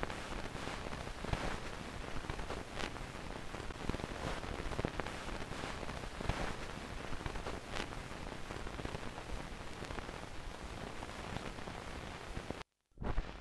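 Faint static hiss with scattered soft crackles, cutting out briefly near the end.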